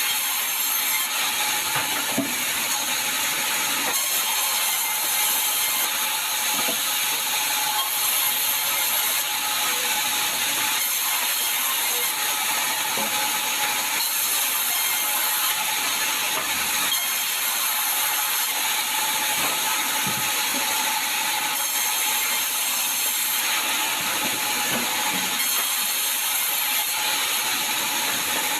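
Sawmill machinery running steadily while sengon (albizia) timber is being sawn: a continuous mechanical rattle and hiss with a steady whine, growing brighter every few seconds.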